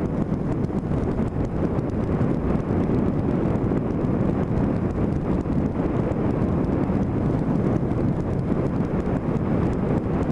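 Steady wind rush on the microphone of a moving motorcycle, with the engine and road noise running evenly underneath at cruising speed.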